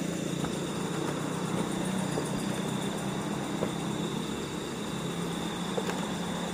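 Swift stream water rushing steadily below a bridge, a constant rush of fast-flowing water.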